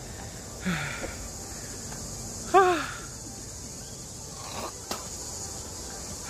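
Steady high-pitched insect chorus in summer woods, with a man's short grunts and breaths from exertion; the loudest, about two and a half seconds in, is a brief vocal sound falling in pitch.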